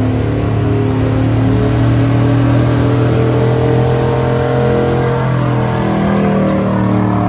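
Chevy Silverado pickup's gasoline engine held at high revs under heavy load as it pulls a weight-transfer sled across dirt. The engine note holds steady, then sags lower in pitch over the last couple of seconds as the load builds.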